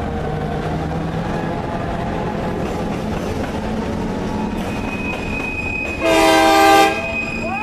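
Freight train of covered hopper cars rolling past close by with a steady rumble, and a thin, high, steady wheel squeal setting in partway through. About six seconds in, a train horn gives one short, loud blast lasting under a second.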